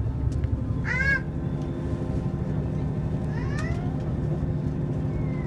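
Steady low rumble of a train running along the line. Two short high-pitched wavering calls cut over it, one about a second in and a fainter one about three and a half seconds in.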